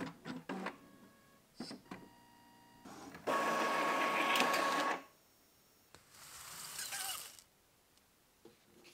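Inkjet printer running a print job. A few clicks and a short whirring whine come first, then a loud steady mechanical run lasting about two seconds. A softer whirring sweep follows near the end.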